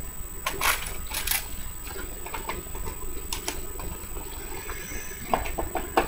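Paper and plastic model kit parts being handled: soft rustling with several light clicks and taps scattered through, a cluster near the start and a few more near the end.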